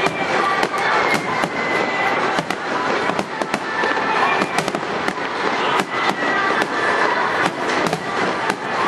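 Stadium fireworks going off in quick succession: many sharp cracks, several a second, over a continuous crackle.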